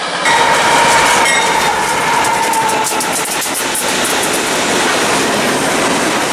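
Freight train of CSX diesel locomotives and cars passing close by, its wheels clattering over the rail joints in a steady rush of rolling noise. A single steady tone rings over the clatter for the first few seconds and then fades.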